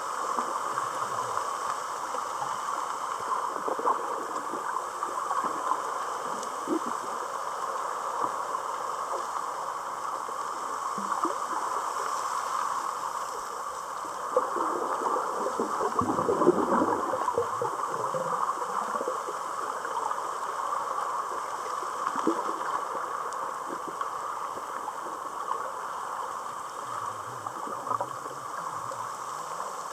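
Underwater ambient noise recorded at shallow depth: a steady hiss with fine crackling, swelling into a louder, lower rush for a few seconds around the middle.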